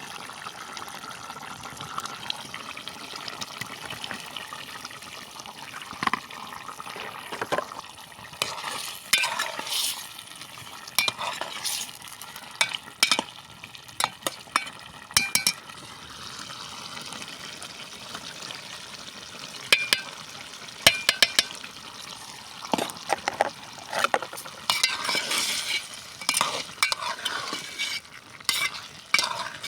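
Food sizzling in a frying pan while a spatula stirs it, with frequent sharp clinks and scrapes of the utensil against the pan.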